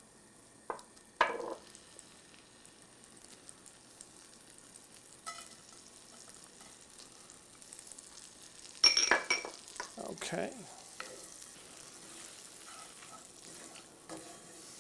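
Butter and brown sugar sizzling faintly in a cast-iron skillet as they melt to caramelize, with utensils stirring, scraping and knocking against the pan; the loudest scrapes and knocks come about nine seconds in.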